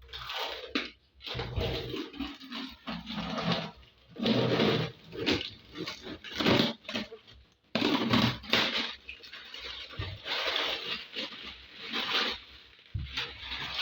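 Irregular scraping and rustling noises in quick uneven bursts, with short pauses between them.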